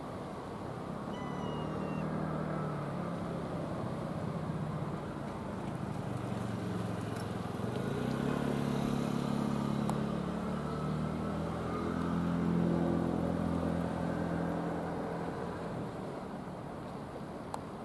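A motor engine drones steadily, its low hum slowly rising and falling in pitch and growing louder through the middle before easing off.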